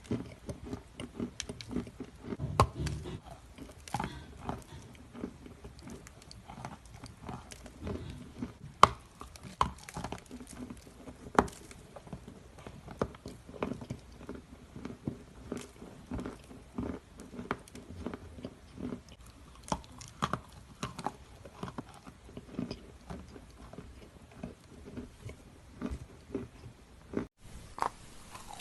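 Close-miked chewing and crunching of edible chalk cookies, many irregular sharp crunches with the softer grind of chewing between them.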